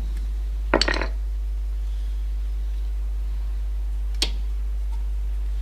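Metal clinks of a brake pad's steel backing being seated in a disc brake caliper: a quick cluster of clicks about a second in and a single click near the end. A steady low hum runs underneath.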